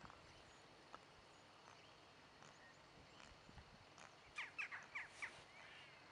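Near silence, broken a little after four seconds in by a bird giving about five short, sharp calls in quick succession.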